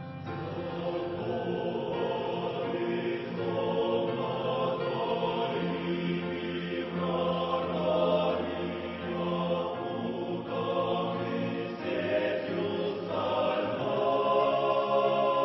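Choir singing a slow Christian hymn in long held chords.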